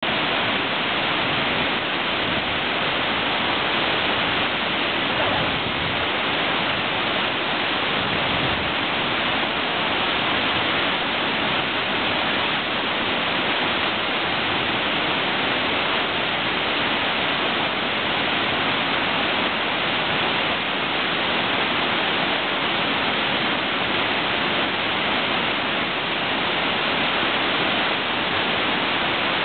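Platte River water pouring over a low concrete weir and churning into white water below: a steady, unbroken rush.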